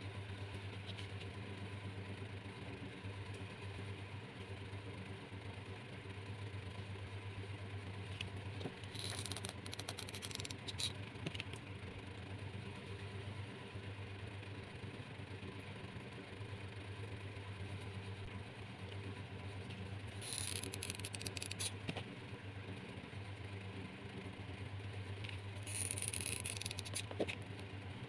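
Hands handling gold tinsel trim and bamboo skewers: three short spells of crinkly rustling and scraping, about a third of the way in, two-thirds in and near the end, over a steady low background hum.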